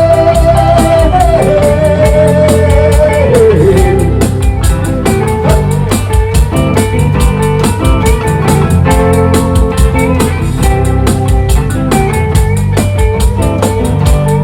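Live band music with guitar, bass and drum kit, and a steady cymbal beat. A long held melody note over the first few seconds steps down in pitch twice, then the band plays on without singing.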